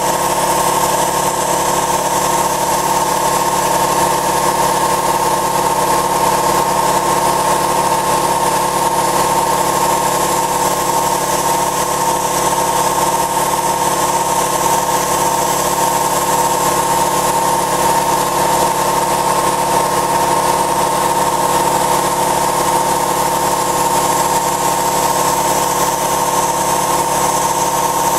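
An air compressor runs with a steady hum while an air-fed spray gun hisses, spraying primer. The sound holds even throughout, with no change in pitch or level.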